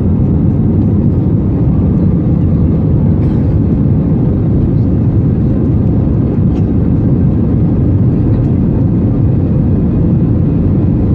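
Steady, loud low rumble of an Airbus A320's engines and airflow heard from inside the passenger cabin, unchanging throughout.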